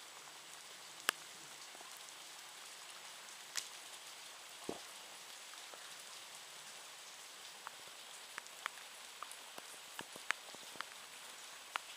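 Steady light rain hissing, with single drops tapping sharply on a nearby surface now and then, more often in the last few seconds.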